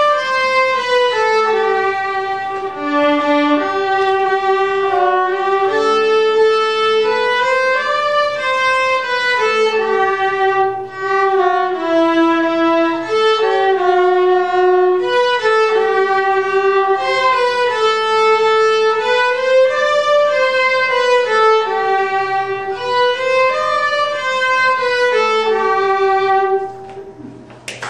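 Viola duet: two violas bowing a flowing melody in stepwise notes over a lower held line. The piece ends about a second before the close, its final note dying away.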